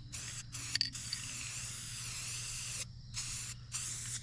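Aerosol spray paint can hissing in spurts: two short sprays, a long spray of about two seconds, then two more short sprays.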